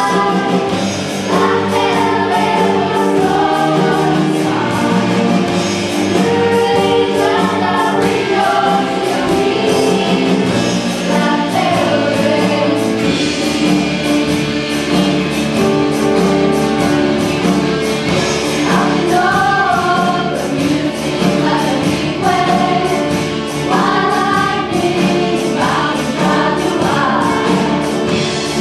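Music from a live stage show: voices singing a melody over a steady instrumental accompaniment of held chords.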